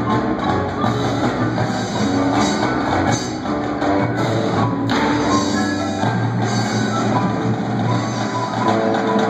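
Indoor percussion ensemble playing: marching snare, tenor and bass drums together with a front ensemble of marimbas, vibraphones and keyboards, a steady, loud, continuous piece of music.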